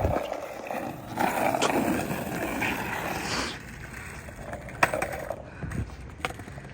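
Skateboard wheels rolling over pavement for a few seconds, then the rolling fades and a sharp clack of the board sounds about five seconds in, followed by a couple of lighter knocks.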